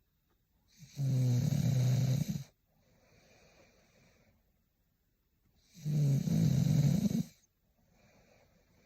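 A sleeping woman snoring: two loud snores about five seconds apart, each lasting about a second and a half, each followed by a much softer breath.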